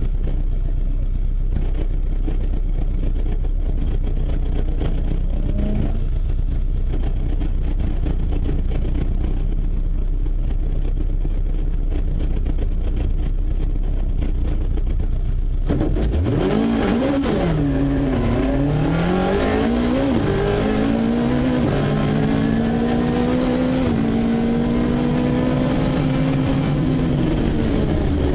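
Rally car engine idling, heard from inside the cabin. About sixteen seconds in it launches and accelerates hard, its pitch climbing and dropping back several times as it shifts up through the gears.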